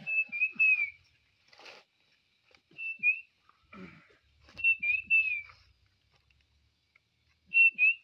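A man whistling bird-call imitations: four short, high, warbling phrases, each wavering and dropping at its end, repeated every two seconds or so.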